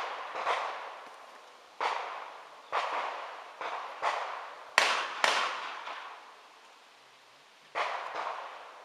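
Gunshots on an outdoor range, about eight sharp reports at irregular intervals, each trailing off in an echo, with a pause of a couple of seconds before the last ones.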